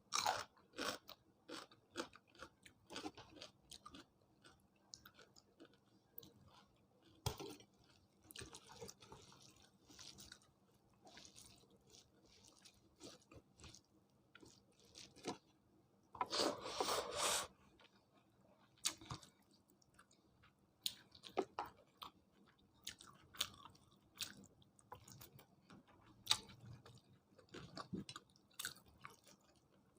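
A person eating close to the microphone: irregular chewing and crunching with wet mouth clicks, from a meal of chicken curry, rice and raw salad. A longer, louder crunching stretch comes about sixteen seconds in.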